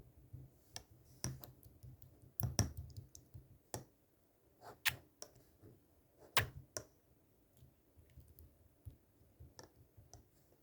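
Irregular sharp clicks and taps, about a dozen of them and unevenly spaced, over a faint low rumble in the first few seconds.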